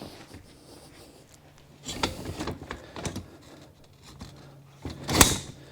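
Aluminium frame poles and plastic connectors being handled and slid together: a short run of scraping and knocks about two seconds in, then one sharp click near the end.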